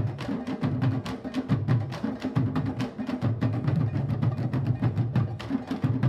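Candombe drum ensemble playing: a comparsa's tambores (chico, repique and piano) beaten with hand and stick, fast dense sharp stick strikes over deep booming drum tones.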